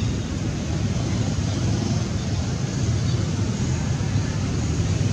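Wind buffeting the camera microphone: a steady, uneven low rumble.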